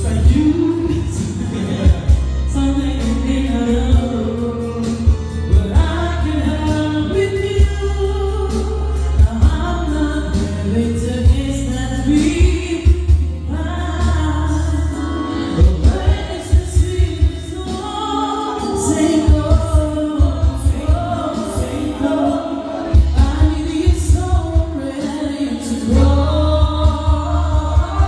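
Amplified singing into handheld microphones, a woman's voice among others, over a backing track with a heavy bass line.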